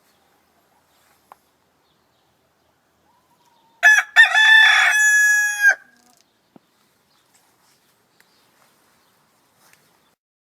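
A rooster crowing once: a call of about two seconds with a couple of short opening notes that run into a long held note, then cutting off. The rest is quiet apart from a few faint ticks.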